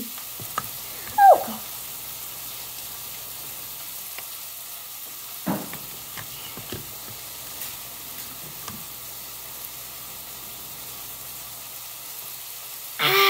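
A young girl's voice: a short, sharply falling squeal about a second in, a brief sound around the middle, and a loud yell near the end, all over a steady background hiss.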